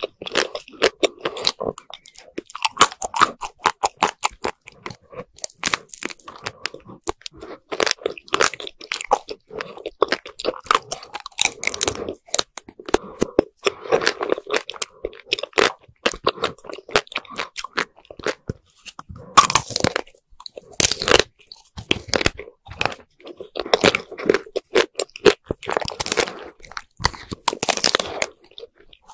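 Close-miked crunching and chewing of frozen chocolate-coated ice cream bars, the hard coating cracking between the teeth in a long run of crisp crunches, louder around two-thirds of the way through and again near the end.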